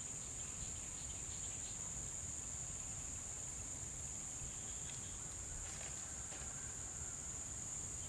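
Steady high-pitched chorus of insects such as crickets, with a low rumbling noise underneath and a few faint ticks about six seconds in.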